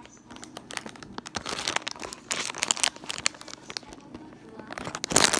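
Plastic snack bag crinkling as it is handled close to the microphone: a run of sharp crackles, loudest near the end.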